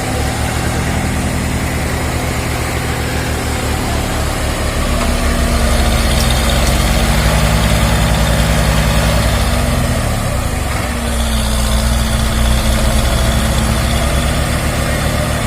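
Heavy diesel engine running steadily, picking up speed about four seconds in, easing back around ten seconds, then picking up again.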